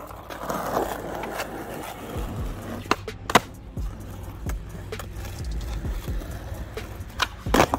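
Skateboard rolling over rough asphalt, the wheels making a steady grinding rumble, broken by sharp clacks of the board: a strong single clack about three seconds in and a quick cluster of clacks near the end.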